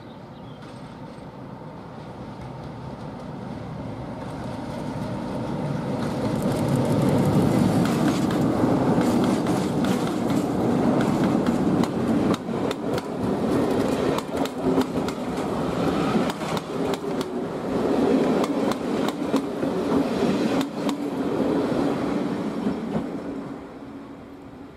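A diesel locomotive hauling passenger coaches approaches and passes. The engine grows steadily louder, then the coaches' wheels click rapidly over the rail joints as they go by, and the sound fades as the train draws away.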